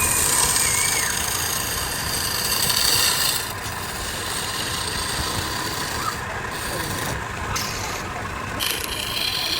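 Wood lathe running with the spinning red tree-root wood being worked, a rasping rub against the wood that breaks off briefly several times over a steady motor hum.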